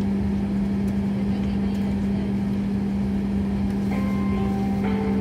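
Airliner cabin noise while taxiing: a steady hum with one strong low tone over a rumble. About four seconds in, faint held music notes come in over it.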